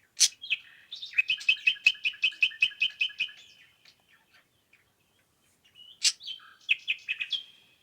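A songbird singing: a run of about a dozen quick, evenly spaced notes lasting a couple of seconds, then a shorter phrase about six seconds in.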